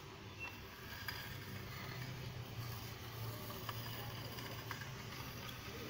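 Shop room tone: a steady low hum with a few faint clicks.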